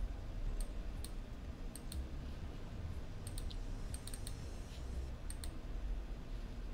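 About a dozen faint, sharp clicks, scattered irregularly and often in quick pairs, over a low steady hum.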